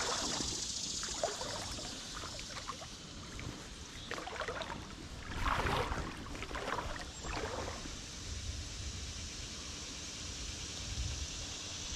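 Creek water running steadily, with a few brief louder sounds about four to eight seconds in.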